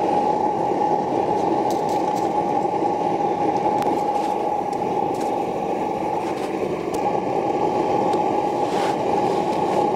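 A machine running steadily, a constant drone with a whine in it, with a few faint scrapes and taps as damp sand is packed by hand around the cans in the mould flask.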